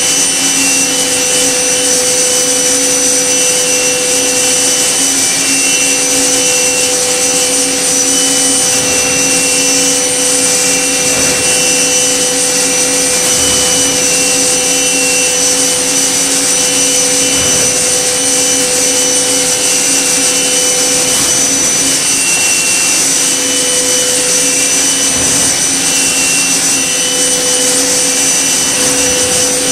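Okuma MB-5000HII horizontal machining center with its spindle running and a small cutter milling a metal block: a steady loud whir carrying several steady pitched tones, some of which fade out and come back every few seconds.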